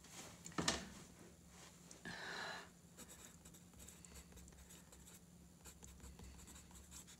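Colored pencil writing on sketchbook paper: faint, quick scratchy strokes, with a sharp click just after the start and a brief louder stroke about two seconds in.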